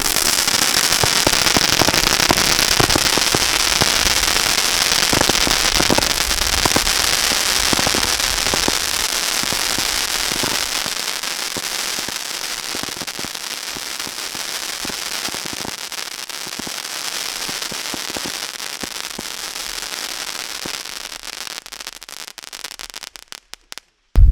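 Winda 'Zip Factory' P5624 470-shot consumer fireworks finale kit firing, giving a dense, continuous crackle of many small pops. It is loudest at first, slowly fades over about twenty seconds, then dies out and cuts off just before the end.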